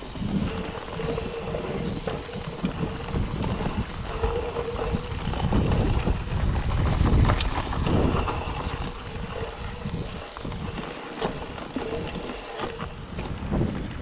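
Mountain bike ridden over a dirt forest trail: a steady rumble of tyres and rattling bike, with a few sharp knocks over bumps. Short high chirps come several times in the first half.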